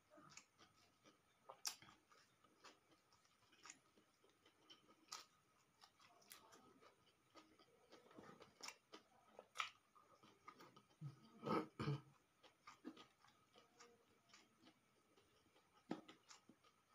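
Faint, close chewing and mouth sounds of a man eating rice and omelette with his fingers: scattered small wet clicks and smacks, with the loudest pair a little past the middle.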